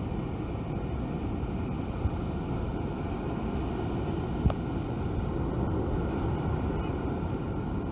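Steady low rumble of surf breaking on the beach mixed with wind on the microphone. Two brief knocks cut through it, the sharper one about four and a half seconds in.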